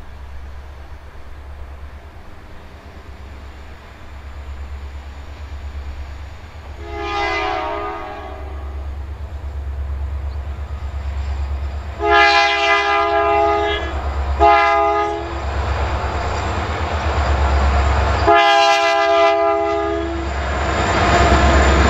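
Rocky Mountaineer passenger train's three diesel locomotives approaching, their engine rumble growing louder. The lead unit's multi-tone air horn sounds four blasts, long, long, short, long: the grade-crossing signal. Wheel and engine noise swells near the end as the locomotives draw close.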